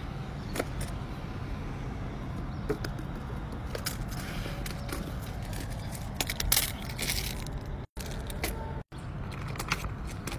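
Fidget toys and a plush being set down and slid across a paper mat on a wooden deck: soft taps, scrapes and a burst of rustling about six seconds in, over a steady low outdoor rumble.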